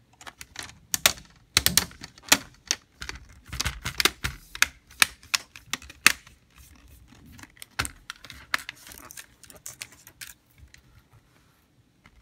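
Plastic screen bezel of an Acer C720 Chromebook being pressed back onto the display lid, its clips snapping into place in a quick, irregular run of sharp clicks that thins out after about ten seconds.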